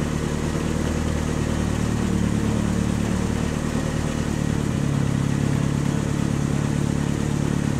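Engine sound effect for a cartoon toy ice cream truck driving around a race track: a steady low engine hum that shifts slightly in pitch about five seconds in.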